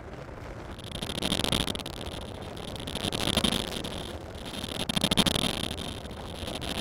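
Logo-sting sound effect: whooshes that swell and fade about every two seconds, with a steady high-pitched hiss over them.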